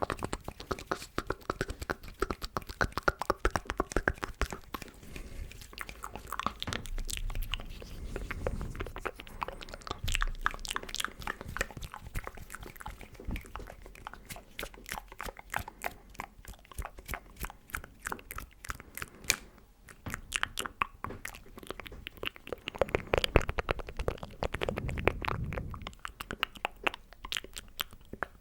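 Close-miked ASMR mouth sounds: a steady run of rapid clicks and smacks in quick succession, growing louder for a few seconds near the end.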